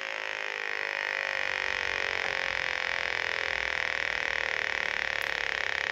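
Handheld combustible-gas detector's electronic tone, steady with its pitch drifting slowly lower, as its probe is passed over water heater gas valve fittings.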